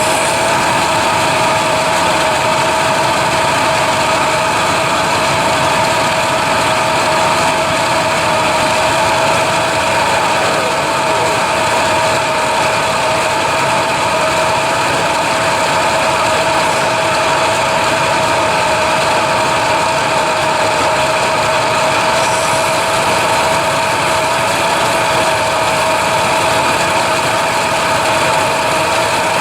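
A machine running steadily, with an even mechanical hum holding two steady tones and no change in speed.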